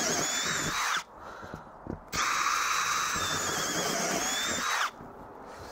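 Cordless drill whining as it drills through a thermal van lining panel from the back. It runs until about a second in, stops, then runs again for nearly three seconds before slowing and cutting off.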